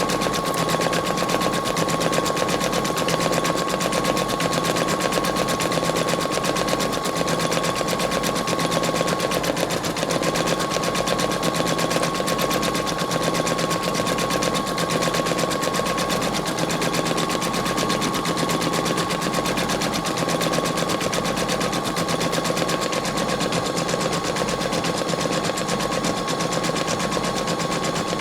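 Embroidery machine stitching steadily at speed: a rapid, even clatter of the needle with a steady high whine that drops out briefly about ten seconds in.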